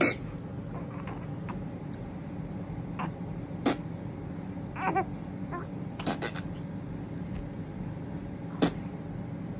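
Steady low room hum with a few scattered sharp clicks and taps, and one brief baby squeal about five seconds in.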